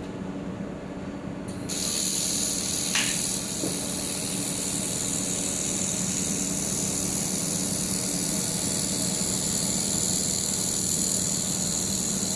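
Handheld air-cooled laser welder firing a weld pass: a steady, high hiss starts suddenly just under two seconds in and holds even, over a steady low hum.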